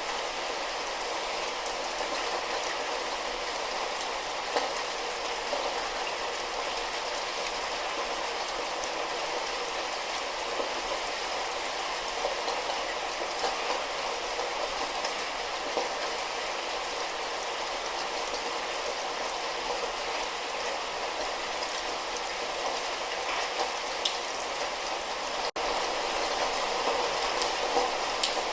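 Light rain falling steadily, an even hiss dotted with faint drop ticks. The sound cuts out for an instant about 25 seconds in, then resumes slightly louder.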